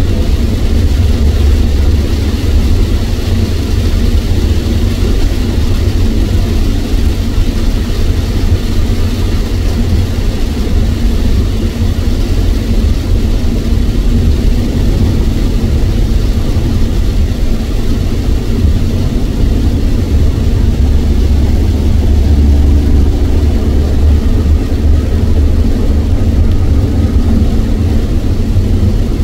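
Steady cabin noise of a car driving at speed through heavy rain: a loud, deep rumble of tyres and engine on the wet road, with a hiss of rain and spray over it.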